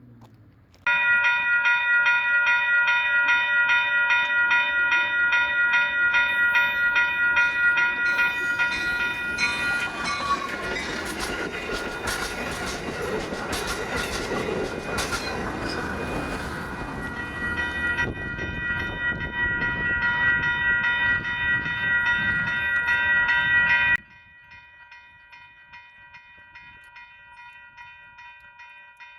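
Railroad crossing bells ringing with a steady repeating ding while a train passes, its wheels clattering over the rails in the middle. The bells drop suddenly much quieter about three quarters of the way through.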